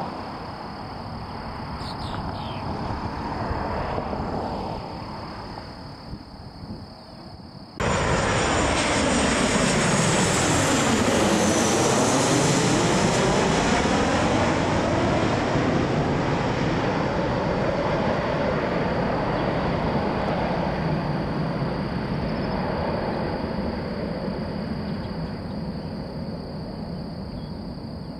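Distant jet engine noise of an airliner climbing out. Then, after an abrupt cut, a Boeing 737 on final approach with its gear down passes low overhead. Its engine noise is loud, with a sweeping whistle that falls and then rises in pitch as it goes over, and it slowly fades as the jet moves away.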